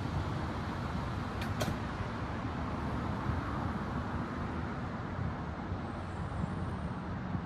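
Steady outdoor background rumble, strongest in the low end, with two faint sharp ticks about a second and a half in.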